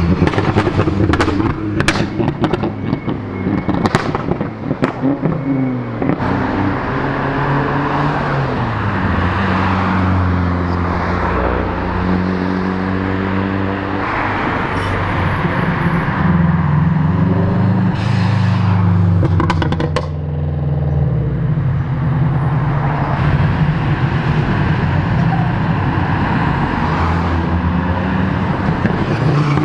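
Cars driving past one after another, engines revving up and easing off, with sharp exhaust pops and crackles in the first few seconds and again about two-thirds of the way through.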